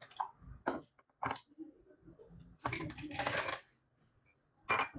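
Water poured from a plastic cup into a plastic blender jug, with a few sharp clicks and knocks of plastic and a longer splash of about a second near the middle.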